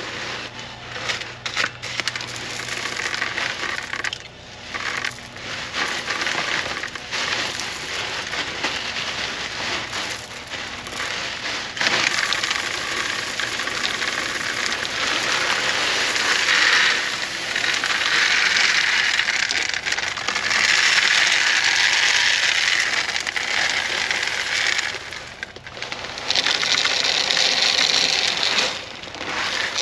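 Pea gravel poured from a bag into a plastic in-ground handhole, a continuous rattle of small stones that grows heavier about halfway through, with a short break shortly before the end.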